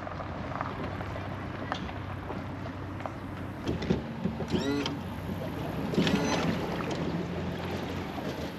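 150-horsepower outboard motor idling with a steady low hum as the bass boat moves slowly off from the dock. A couple of short, higher-pitched gliding sounds come in around the middle.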